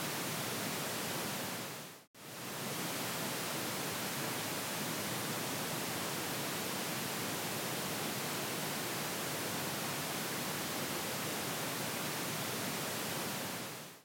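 Pink-noise test signal from a DTS-HD 5.1 speaker-assignment test: a steady, even hiss with no deep bass. It is routed first to the right surround channel, fades out about two seconds in, stops for a moment, then fades back in on the left surround channel and fades out at the end. It checks that each surround speaker is wired to the right channel.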